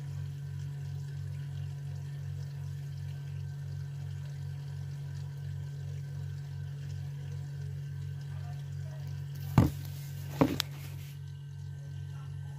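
Dishwasher running: a steady low hum that pulses about three times a second, with water moving through the machine. Two sharp knocks about ten seconds in.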